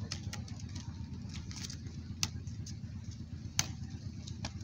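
A football kicked back and forth with bare feet: sharp knocks about two seconds and three and a half seconds in, with a few lighter ones, over a steady low rumble.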